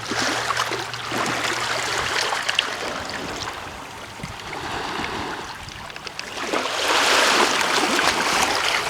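Shallow water trickling and lapping at the shoreline, a hiss full of small crackles that swells twice, the second time louder, about two-thirds of the way through.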